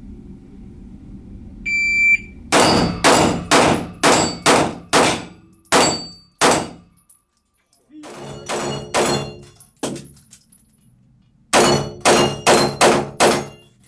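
Electronic shot-timer beep, then rapid pistol fire in an echoing indoor range: a string of about nine shots roughly half a second apart, a few looser shots, and near the end another quick string of about six.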